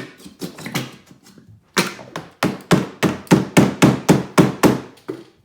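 A run of sharp knocks, about four a second for some three seconds, after a few scattered ones: something hard being tapped or banged repeatedly.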